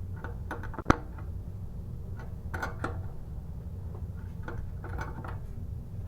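Small metallic clicks and clinks of an open-end wrench working a closet bolt nut down against its washer at the toilet base, with one sharp click about a second in.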